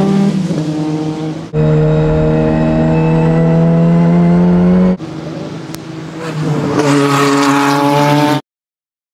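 Ford Zakspeed Turbo Capri race car's turbocharged four-cylinder engine running hard at high revs. It first fades as the car pulls away, then is heard loud and steady from on board with its pitch slowly rising, then grows louder again as the car approaches. The sound cuts off abruptly shortly before the end.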